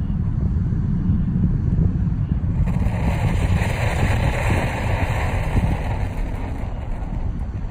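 Wind buffeting the microphone throughout. About three seconds in, a hissing rush joins it as a liquid-fuel camping stove's burner is lit and flares, easing off near the end.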